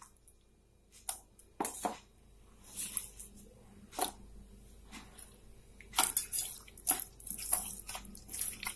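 Hand squelching wet masala paste into raw quail pieces in a steel container. A few separate squishes come in the first seconds, then denser, continuous squelching from about six seconds in.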